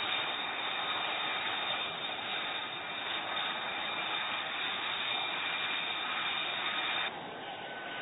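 F-35B fighter's jet engine running: steady dense jet noise with a high whine on a couple of steady tones. About seven seconds in it drops abruptly to a quieter rush with a different whine.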